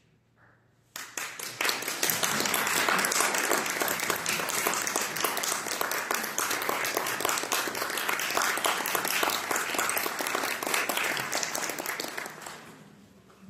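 Audience applauding. The clapping starts suddenly about a second in, holds steady for about ten seconds, then fades out near the end.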